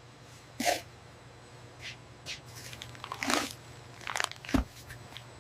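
A low steady hum with a handful of short, scattered noises, the loudest about three seconds in.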